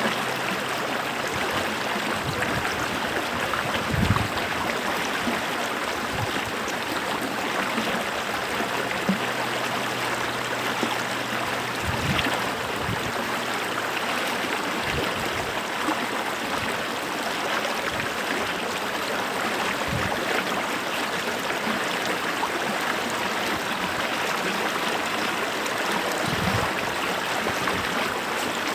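Running water of a stream flowing steadily, an even rushing sound, with a few soft low thumps scattered through it.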